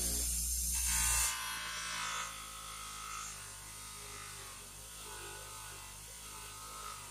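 Bench grinder running a Scotch-Brite light deburring wheel with a steel ball peen hammer head held against it: a steady motor hum under the scrubbing of the abrasive wheel on the metal. The scrubbing is loudest and hissiest for about the first second, then quieter and uneven as the head is moved over the wheel.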